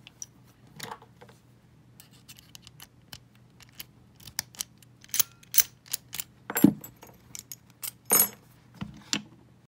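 Irregular metallic clicks and clinks of padlocks and lock picks being handled, with two louder knocks about six and a half and eight seconds in.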